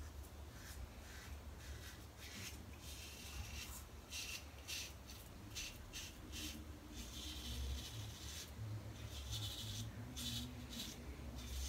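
Single-edge safety razor scraping through thick lather and stubble on a scalp in a rapid series of short, faint strokes.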